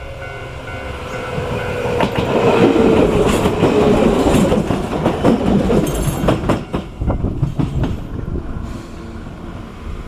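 Enshu Railway electric train passing the level crossing: a loud rush builds and peaks a few seconds in, then a run of wheel clacks over the rail joints fades away as it leaves. The crossing's warning bell is ringing at the start.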